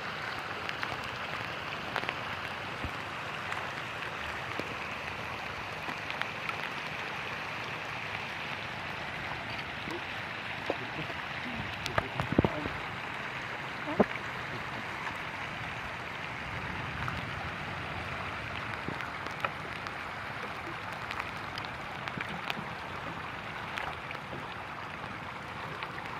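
Steady rain falling on lake water, an even hiss, with a few sharp knocks around the middle.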